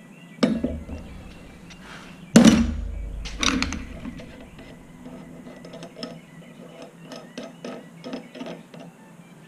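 A ratchet wrench and the small brass internal parts of an oxygen torch regulator being handled and taken apart. Two heavy knocks come in the first few seconds, the second the loudest, followed by a run of light metallic clicks and ticks.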